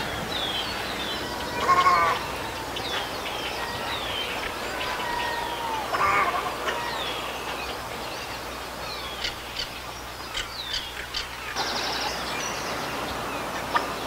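Heron calls from a wildlife recording: a short harsh call about two seconds in and another about six seconds in, over a background of small birds chirping. About eleven and a half seconds in the background changes as a different recording begins.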